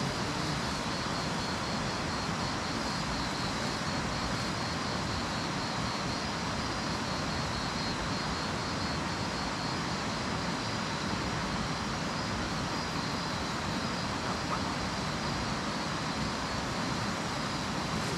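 Steady rushing of a flooded river running close by, an even, unbroken noise.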